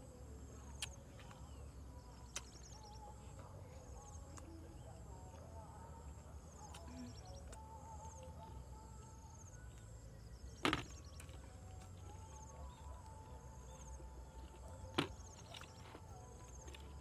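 Quiet rural background: a steady low wind rumble with faint, high, repeating trills. Two louder sharp clicks come about eleven and fifteen seconds in.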